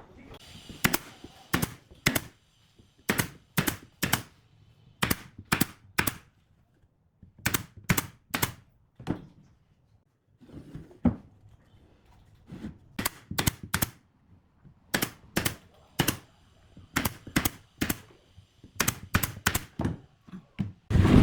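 Sharp knocks on wood in quick groups of two or three, repeating about once a second with a short pause midway: nails being driven into wood.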